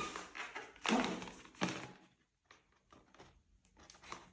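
Latex modelling balloons being handled and pressed together: rubbing and rustling with a couple of sharp knocks in the first two seconds, then scattered light taps.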